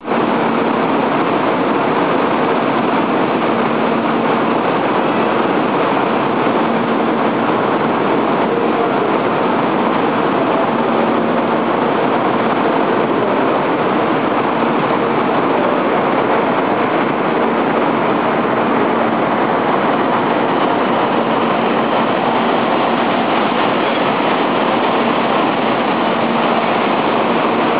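Kyushu Shinkansen train running, a steady rushing noise with a faint low hum that neither builds nor fades.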